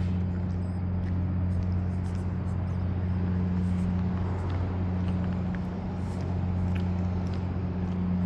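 A steady low machine hum that holds one pitch throughout, over a faint even background noise, with a few faint ticks.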